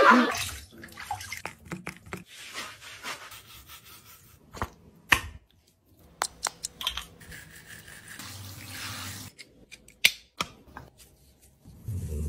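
Water dripping and a sponge rubbing over a wet dog's coat in a tiled shower, broken by scattered sharp clicks and knocks.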